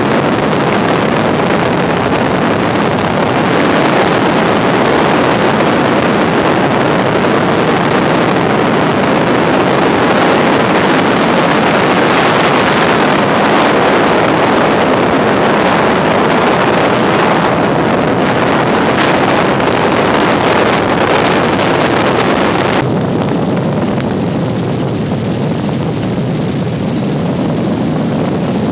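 Helicopter in flight heard from inside the cabin: a loud, steady rush of engine, rotor and air noise. About 23 seconds in it suddenly turns duller and a little quieter.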